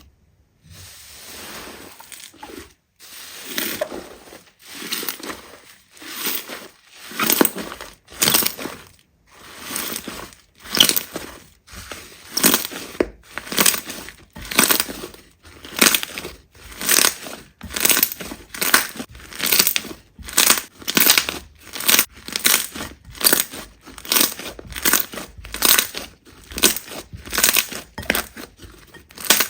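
Slime being pressed and squeezed by hand over and over, each squeeze a separate wet, crackly burst; about one a second at first, coming faster, nearly two a second, in the second half.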